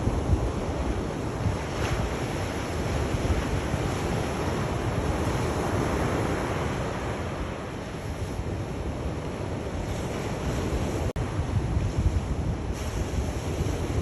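Sea waves washing in steadily, with wind buffeting the microphone as a low rumble. The sound cuts out for an instant about eleven seconds in.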